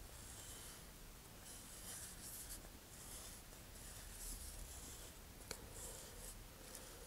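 Faint rubbing and rustling of fingers on a paper rocket coupler tube as it is squeezed and turned in the hands, coming and going, with one light click about five and a half seconds in.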